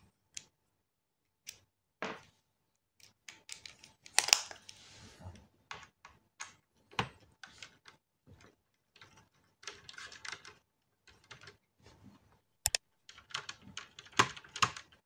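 Small screwdriver turning out a motherboard screw in a laptop's plastic chassis: an irregular run of clicks, ticks and light scrapes, busiest about four seconds in and again near the end.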